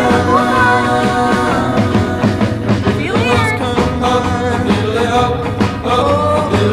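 Background music: a rock song with a singing voice over a steady beat.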